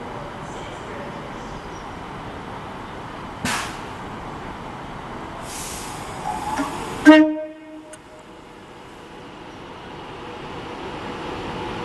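Avanti West Coast Class 390 Pendolino electric train running in along the platform, giving one short, loud blast on its horn about seven seconds in. Its running rumble grows steadily as it draws nearer.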